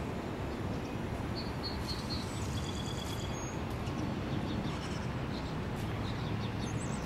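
Steady outdoor background noise, a low rumble of distant traffic or wind, with a few faint high bird chirps about one and a half to three seconds in.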